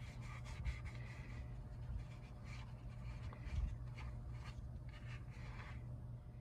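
A paper towel rubbing and wiping around a brake caliper piston and its rubber dust boot to clean off brake dust. It makes a run of short, irregular, dry scrubbing strokes over a steady low hum.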